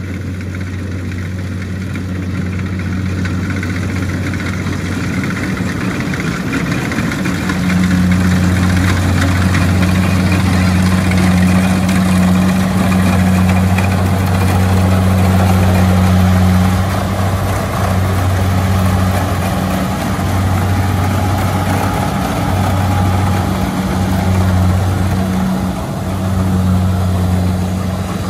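Kubota DC70 combine harvester working a rice crop: its diesel engine runs steadily under load as a deep, even drone with mechanical noise from the cutting and threshing gear above it. It grows louder about seven seconds in and wavers in level through the second half.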